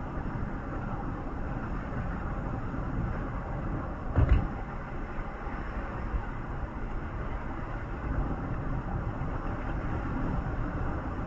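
A road vehicle driving, with a steady low rumble of engine and tyres and a single loud thump about four seconds in.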